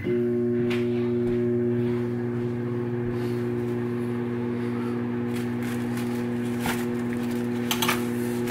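A kitchen appliance switches on and runs with a steady electrical hum, with a few light clicks from handling things on the counter.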